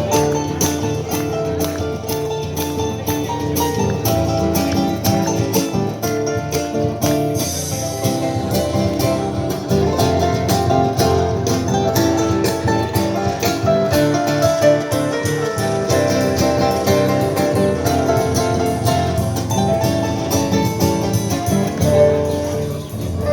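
Harp playing a lively piece in a fast run of plucked notes over a bass line.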